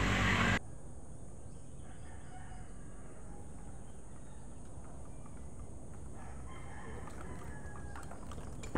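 Roosters crowing faintly over a steady outdoor hiss, after a louder noisy stretch that cuts off sharply about half a second in. A few clicks sound near the end.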